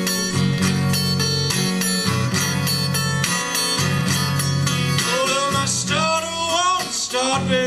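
Fingerpicked acoustic blues guitar with a steady, thumbed bass line. A man's voice comes in about five seconds in with a wavering, sliding sung phrase.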